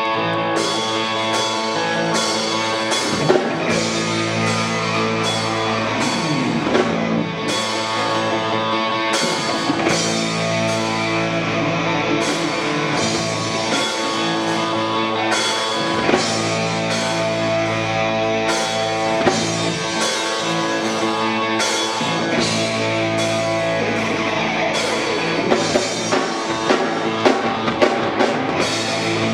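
Latin rock band playing live: electric guitars, bass guitar and drum kit in an instrumental passage without vocals.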